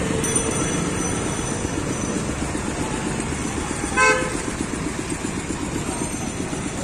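Steady noise of busy street traffic, with a short vehicle horn toot about four seconds in.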